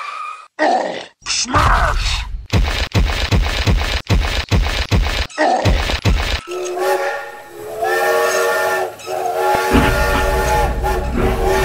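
Steam-train sound: a run of rhythmic chugging, then from about halfway in a long, chord-like steam whistle held for about three seconds. A low rumble comes in near the end.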